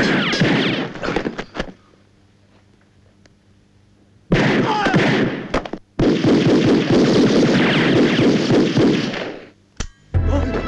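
Film gunfight sound effects: long bursts of rapid gunfire in three loud stretches, broken by a quiet gap of about two and a half seconds early on and a brief drop about six seconds in.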